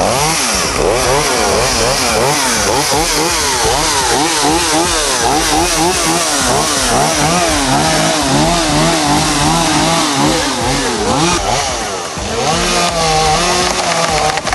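Gas chainsaw running, its engine speed rising and falling over and over as it is worked on a storm-felled tree. It drops back briefly near the end, then revs up again.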